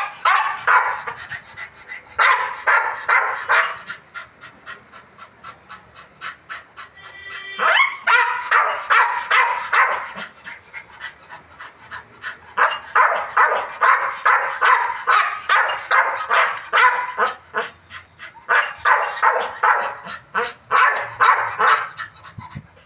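Pit bull barking in rapid runs of short barks, in several bursts of a few seconds each with brief pauses between. There is one rising yelp about eight seconds in.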